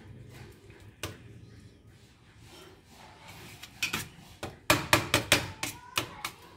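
Kitchen knife chopping soft roasted eggplant flesh on a stainless-steel plate, the blade knocking on the steel: one sharp tap about a second in, then a quick run of about eight sharp taps in the second half. The eggplant is being cut up into bharta.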